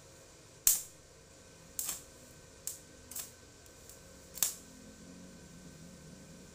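About five sharp, short clicks or knocks, irregularly spaced, the first and last loudest, with no ringing after them.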